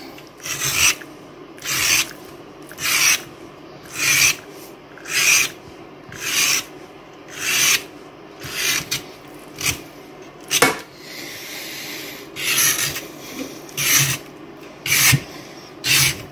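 Utility knife blade scoring the rind of a raw pork roast: a rasping scrape with each cut, about one stroke a second, and one sharp click about two-thirds of the way through.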